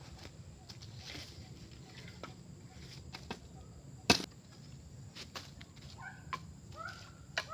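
Scattered sharp chopping knocks, one much louder about four seconds in. A bird calls a few short notes near the end.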